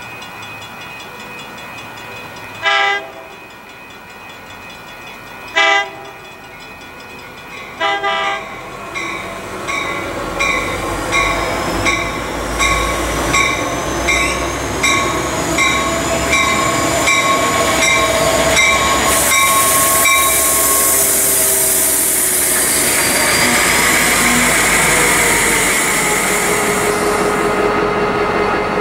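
San Diego Coaster commuter train pulling into the station: its horn gives three short blasts, a bell rings about once a second, and the rumble of the train grows as it rolls in, with a loud high hiss as it comes to a stop.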